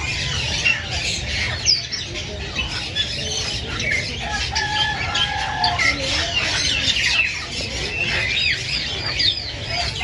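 Many caged birds calling at once: a dense, continuous chatter of short high chirps, with squawks and a few longer, lower calls mixed in.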